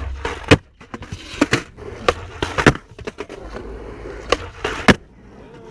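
Skateboard rolling on wet concrete, its wheels running under a string of sharp clacks from tail pops and landings. The loudest impact comes about half a second in, with several more spread through the rest.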